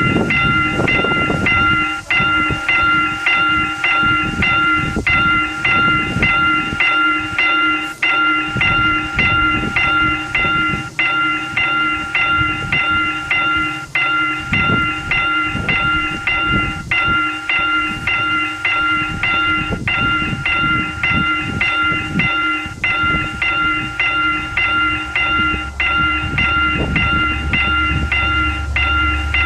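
Railroad level-crossing warning bell ringing in a fast, even repeating ding, about three rings a second. A low rumble comes in near the end.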